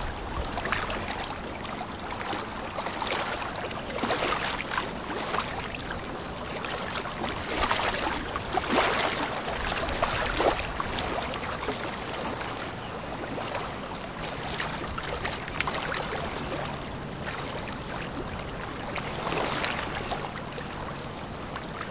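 Rushing, splashing river water and wind noise. It swells louder now and then, and a faint steady low hum comes in during the second half.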